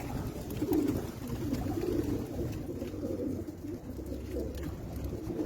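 Domestic pigeons cooing, several low, wavering coos overlapping without a break.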